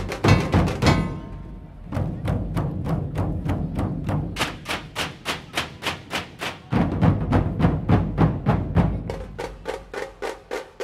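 Dhol-tasha drum troupe playing: a loud, dense passage breaks off about a second in, then the drums settle into a steady beat of sharp strokes about five a second over deep dhol booms. The booms are heaviest in the middle, and the playing grows fainter near the end.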